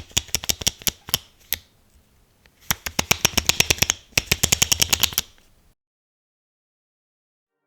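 Jupiter-36B lens aperture ring turned by hand, clicking rapidly through its stops: a short run of clicks, a pause, then two longer runs of about ten crisp clicks each. The sound then cuts off to dead silence.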